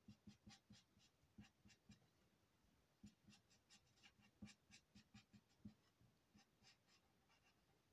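Faint scratching of an alcohol marker's felt tip on paper, laid down in short quick strokes, with a brief pause about two seconds in and the strokes thinning out near the end.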